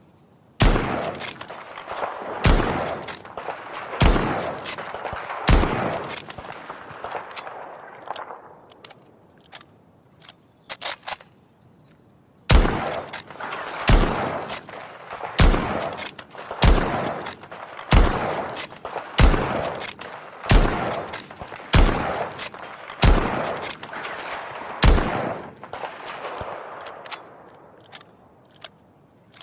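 Lee Enfield No.4 .303 bolt-action rifle fired in quick succession, each shot with a long echoing tail. Four shots about a second and a half apart are followed by a pause with faint metallic clicks, then ten more shots at a fast steady pace, with bolt clicks between shots.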